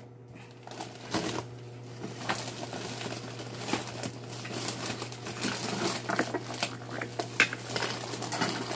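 Plastic wrap on a Play-Doh tub crinkling and crackling as it is cut and picked at with scissors, with scattered small clicks.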